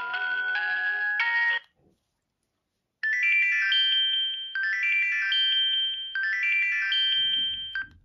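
Philips 162 mobile phone's built-in ringtones playing through its small speaker: one melody cuts off about a second and a half in, and after a short silence a different ringtone starts, a bright, high chiming phrase of several notes at once, repeated three times and stopping near the end.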